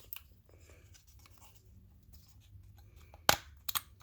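Plastic rear window switch being pressed into its door-panel bezel: quiet handling, then two sharp clicks near the end as its retaining clips snap into place.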